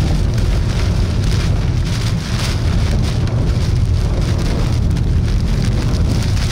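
Rain from a tornadic thunderstorm pelting a vehicle's windshield, over a steady, loud low rumble of wind.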